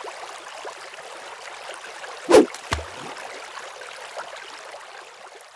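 Running-water sound effect for a logo intro: a steady stream hiss with two sharp hits about two and a half seconds in, the first louder.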